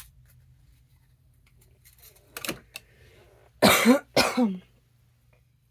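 A person coughing twice in quick succession, about two-thirds of the way in, with a smaller cough or throat-clear a second before.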